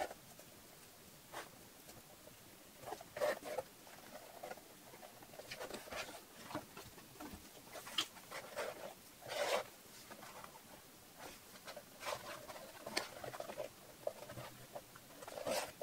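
Leather bag and leather cord being handled on a cutting mat: irregular soft rustles, scrapes and light taps as the cord is pulled and the bag is moved.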